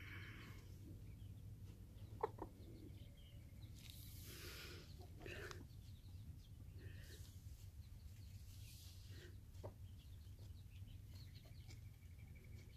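Quiet sounds of several chickens dust bathing in loose, dry soil and ash: soft rustling and scratching of dust, with occasional low clucks. There is a sharp tap about two seconds in.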